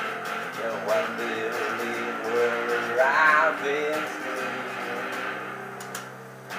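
Les Paul-style electric guitar being played, with picked notes and chords ringing. The loudest moment is a wavering high note about three seconds in.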